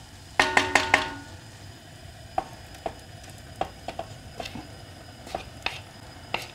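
A wooden spoon taps four times in quick succession against a stainless-steel saucepan, which rings briefly after each tap. Then come scattered light knocks and scrapes as mashed potato is tipped from a wooden bowl into the pan and worked with the spoon.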